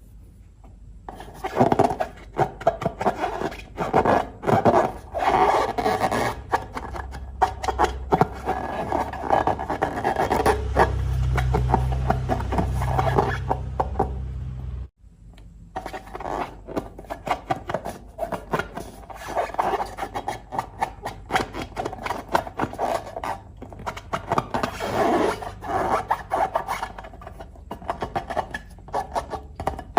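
Hands working slime with balloons: dense rubbing, scraping and crackling with many quick clicks, cut off abruptly about halfway and then resuming.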